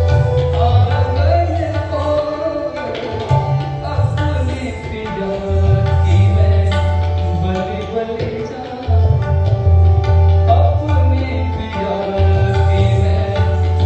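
Thumri music in Hindustani classical style: tabla keeping a rhythm under a sung melody.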